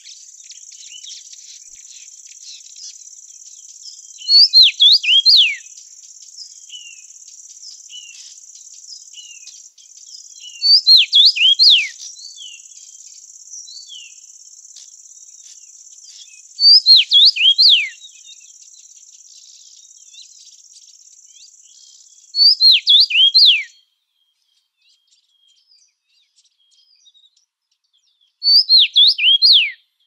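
A songbird singing a short song of quick down-slurred whistled notes, repeated about every six seconds, five times. Behind it runs a steady high insect hiss that cuts off suddenly about three-quarters of the way through.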